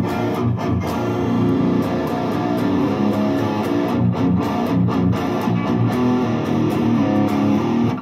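Electric guitar played loud through a Peavey XXL amplifier head and speaker cabinet, a fast run of picked notes, while the amp's knobs are turned to check the pots. The playing stops abruptly at the end.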